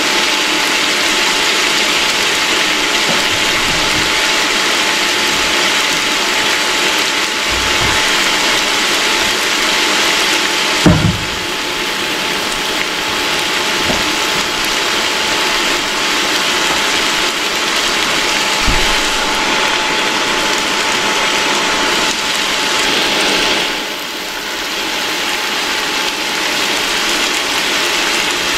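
Chunks of seasoned goat meat with onions sizzling in hot oil in a wok: a dense, steady crackle with a thin steady whine underneath. One sharp knock about eleven seconds in.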